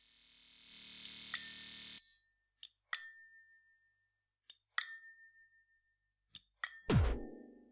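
Sparse electronic music: a rising swell of noise cuts off about two seconds in, followed by three pairs of sharp metallic pings that ring out, and near the end a low tone that drops steeply in pitch.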